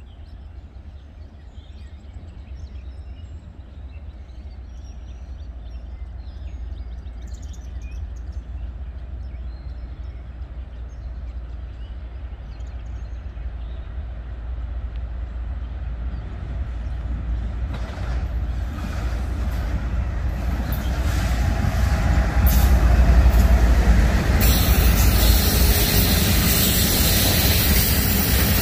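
Norfolk Southern freight train approaching behind its diesel locomotive: a low engine rumble grows steadily louder. From about 18 seconds in, a rushing hiss of the train on the rails joins it, and both are loudest near the end as the train comes up close.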